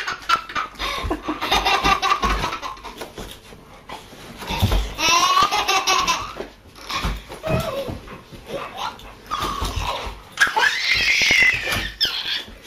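A baby laughing hard in several bursts of high-pitched belly laughs.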